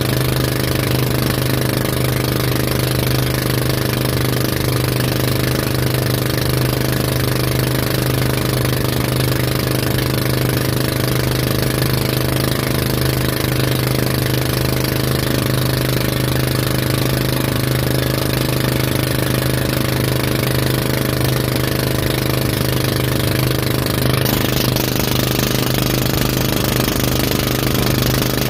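Motorboat engine running steadily at speed while towing, a constant drone with a strong low hum, over a hiss of wind and rushing water.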